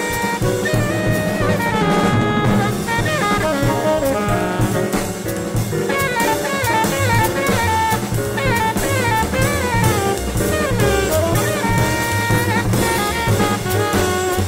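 Jazz music: a saxophone melody with bending notes over a drum kit and a low walking line.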